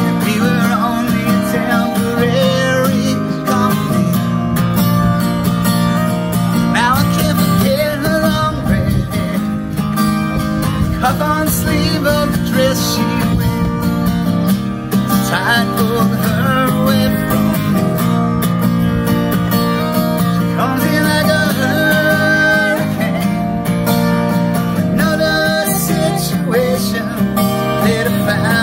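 Acoustic guitar played through a song, with singing over it.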